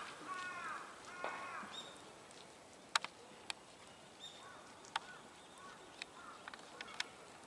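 A crow caws several times in the first couple of seconds, each call a harsh arched note. After that come a few faint short calls, and a handful of sharp, isolated knocks, the loudest about three seconds in.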